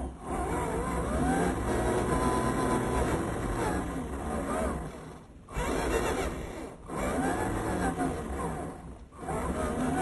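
Motor and gears of a 1:10 scale RC off-road truck whining, the pitch rising and falling as it drives. The sound drops away briefly a few times.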